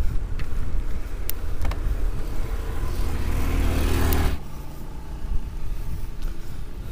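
A motor vehicle engine grows louder as it passes close, then cuts off abruptly about four seconds in. Wind rumbles on the microphone of a moving bicycle throughout.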